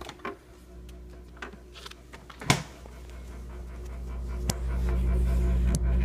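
An LG LFX31925ST French-door refrigerator making its unexplained bad noise: a steady hum with many overtones that swells louder from about four seconds in and takes on a fast pulsing. A few short knocks come earlier, the loudest about halfway through.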